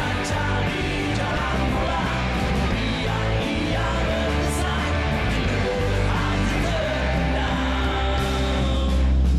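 Live rock band playing: electric guitars, bass and drums, with a singer's voice over the band. The low end grows louder near the end.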